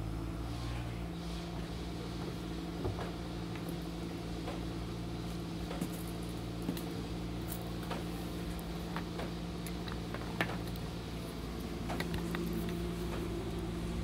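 Steady low machine hum, like a motor or engine running at a constant speed, with scattered light clicks and ticks over it.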